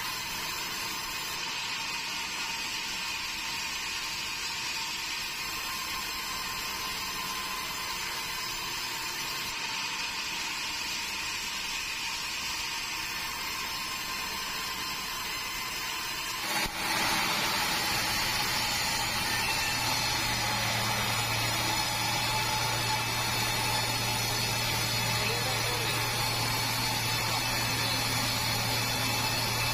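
Band sawmill running steadily: a mechanical hum with a high, steady whine. About halfway through it changes abruptly to a louder, deeper, steady hum.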